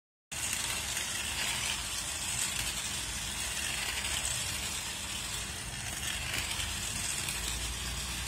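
Miniature toy slot cars lapping an oval track: the small electric motors whir and the cars rattle in the track slots, a steady sound that swells every couple of seconds as a car passes close.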